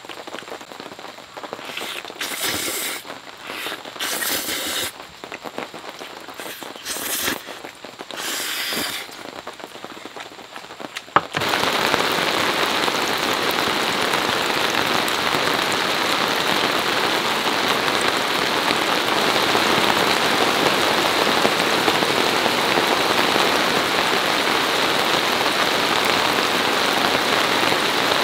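Scattered short sounds of a person eating noodles. About eleven seconds in, an abrupt change to steady rain falling on a fabric camping tarp, with water dripping off its edge; the rain is the louder sound and continues to the end.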